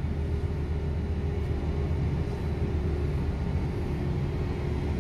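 Steady low hum and rumble of a ship's machinery, with a faint steady higher tone running through it.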